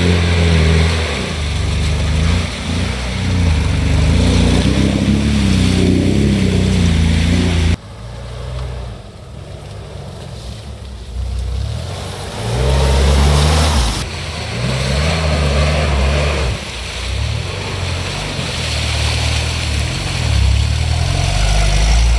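Off-road 4x4 engine revving up and dropping back repeatedly under load, with sudden changes about a third and two thirds of the way through.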